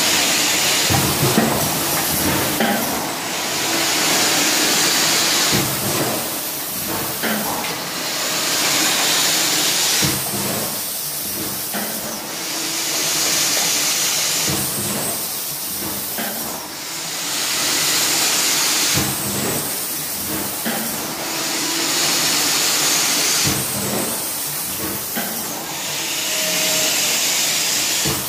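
Automatic cup-filling and sealing machine running through its cycle: a hiss of compressed air that lasts about two seconds and comes back about every four and a half seconds, over the steady clatter of the machine.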